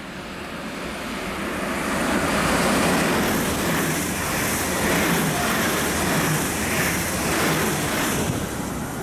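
Double-deck regional express train of grey-green Twindexx coaches passing through the station at speed. The rush of wheels on rails grows louder over the first two seconds, stays steady while the coaches go by, and eases off near the end.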